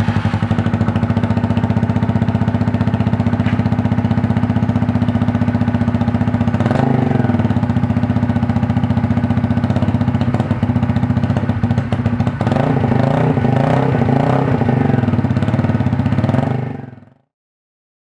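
Lexmoto Falcon 125's single-cylinder four-stroke engine running through its stock silencer, steady and even. Its note changes about 7 s in and again about 12 s in, then fades out near the end.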